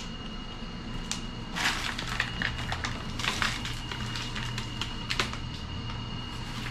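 Crinkling and crackling like crumpled sheet material being handled or stepped on, in short bursts about a second and a half and three seconds in, with scattered clicks. Under it runs a steady low hum and a faint high whine.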